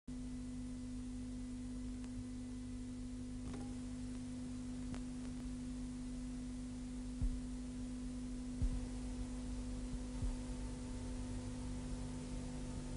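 A steady low pure tone, the line-up tone that runs with a videotape clock ahead of a recorded programme, over faint mains hum, with a few soft low thumps about seven, eight and a half and ten seconds in.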